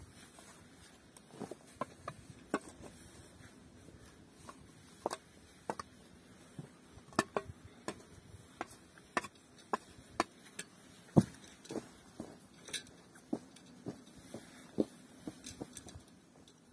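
Steel shovel working in a stone-ringed fire pit: irregular sharp clinks and scrapes as the blade strikes stones, ash and soil, with one louder knock about eleven seconds in.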